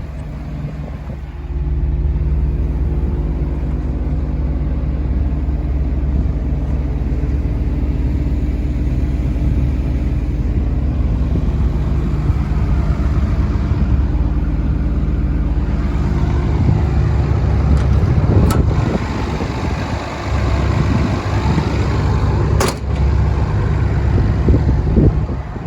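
Komatsu PC300LC-7 excavator's diesel engine running steadily, getting louder about a second and a half in. Two sharp knocks near the end.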